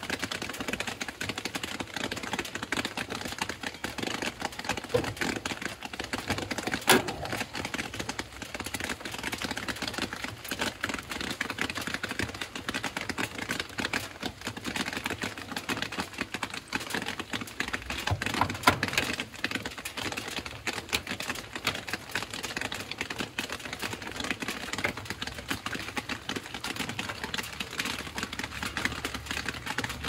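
Rain falling on an umbrella held overhead: a dense, irregular tapping of drops that keeps on steadily, with a sharper click about seven seconds in and another about nineteen seconds in.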